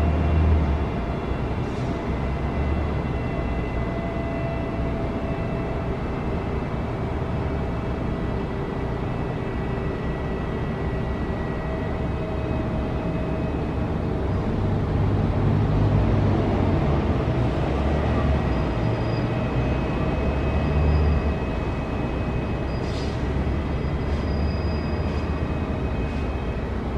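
Bus engine running, a steady low rumble with faint steady whines above it.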